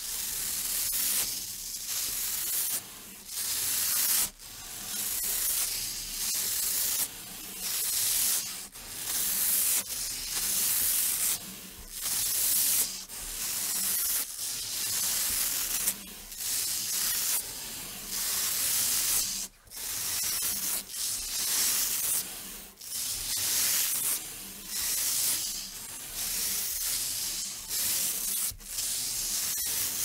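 Velcro (hook-and-loop fastener) being ripped apart over and over by two people. Each rip is a noisy tearing sound of about a second, following one another with short breaks.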